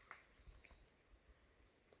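Near silence: faint outdoor ambience with a couple of faint ticks.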